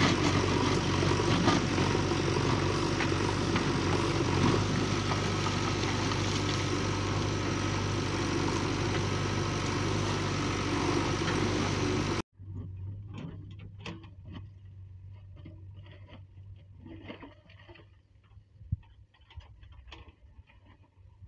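JCB 3DX backhoe loader's diesel engine running steadily while the backhoe digs, with occasional knocks. About twelve seconds in the sound cuts off abruptly to a much fainter track of scattered knocks and clatters over a weak low hum.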